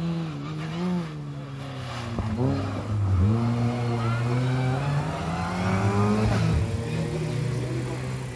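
Rally car engine at hard revs through a hairpin, its note wavering, then climbing steadily for a few seconds before dropping away. A couple of sharp cracks come about two seconds in and again near six and a half seconds.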